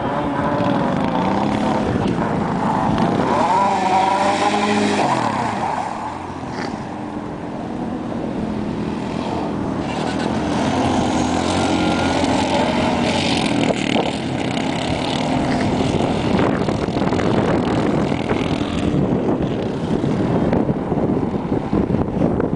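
Suzuki ATV engine revving up and down as the quad drives and slides on snow, its pitch rising and falling with the throttle. It dips briefly about six seconds in, then runs hard again.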